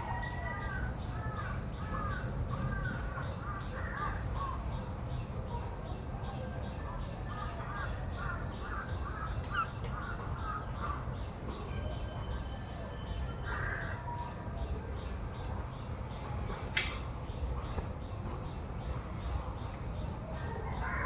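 Crows cawing in two quick runs of repeated calls, with a few single calls later. Under them runs a steady low rumble, and a sharp click comes near the end.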